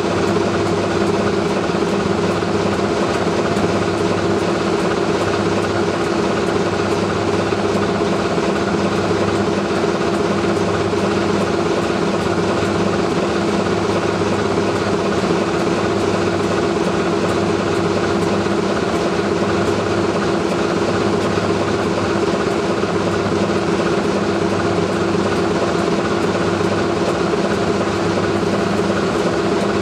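A heritage BRCW-built diesel locomotive with a Sulzer engine, idling steadily while stationary. Its low hum has a slow, regular throb, about once every second and a half.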